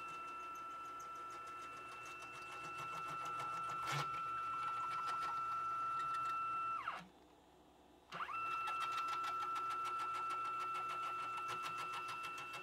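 Y-axis drive of a CNC router running its 10 TPI ball screw, a steady motor whine with a grinding, rattling racket over it and a sharp click about a third of the way in. Past the middle it winds down and stops for about a second, then winds back up as the gantry moves the other way. The owner takes the racket for bad ball screw bearings.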